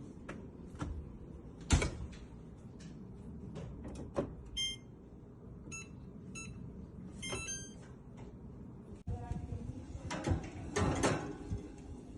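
Knocks and clicks of an oven being handled, with a loud knock a couple of seconds in. Then a run of short electronic beeps from the oven's control panel as the bake is set.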